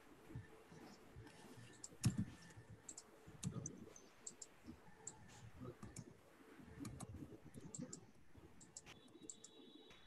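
Faint, irregular clicks and taps with a few soft low thumps, picked up on an open microphone in a video call.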